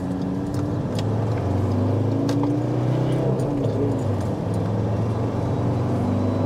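Ford Ranger's engine and road noise heard from inside the cab as the truck pulls away under throttle. The engine note strengthens about a second in and then holds steady.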